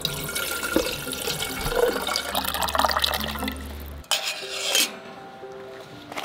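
Water running from a Stanley water jug's spigot into a small ALOCS camping kettle, filling it for about four seconds before stopping abruptly. Then a brief metallic clatter as the kettle is set on a kerosene heater's wire guard and its lid goes on.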